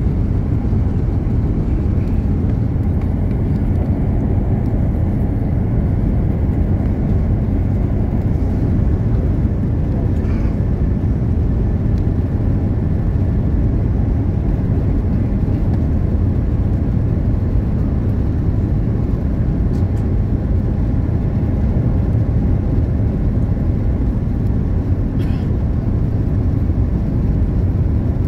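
Steady low rumble of jet airliner cabin noise on approach, engines and airflow over the wing with its flaps extended, heard from inside the cabin, with a few faint steady tones above the rumble.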